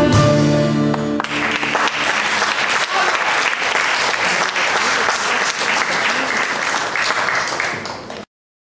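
A band's held final chord on violin, guitars and bass stops about a second in, and the audience breaks into applause, which cuts off suddenly near the end.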